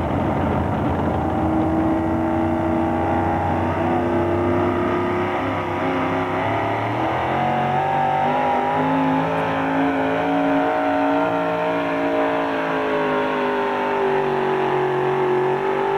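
Supercharged engine of a super modified 4x4 pulling truck running flat out under heavy load while dragging a pulling sled. The pitch holds high, climbs about halfway through and eases down toward the end.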